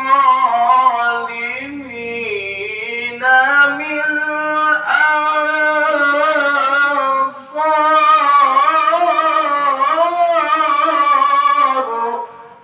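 A male qari reciting the Quran melodically: a single voice holding long, ornamented notes that waver and slide in pitch. There is a short breath about seven seconds in, and the phrase ends just before the end.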